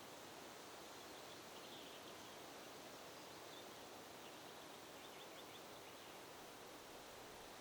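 Faint, steady hiss of wind, with a few faint high bird chirps about a second in, midway, and again around five to six seconds in.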